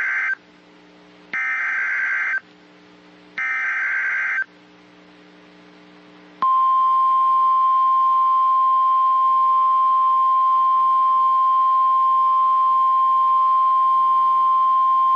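NOAA Weather Radio SAME alert header: the end of one burst and then two more bursts of warbling data tones, each about a second long and a second apart. About six seconds in, the steady 1050 Hz weather radio warning alarm tone starts and holds for about nine seconds. This is the signal that opens a tornado warning broadcast.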